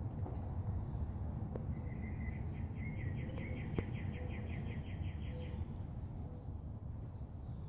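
Outdoor ambience: a steady low rumble, with a fast trill of high chirps from about two seconds in to past five seconds, and a couple of faint clicks.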